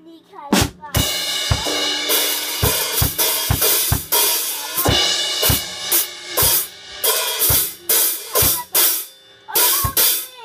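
Drum kit played by a young child: cymbals crashing over bass and snare drum hits about twice a second. It starts with a single hit, runs on without a break from about a second in, and pauses briefly near the end.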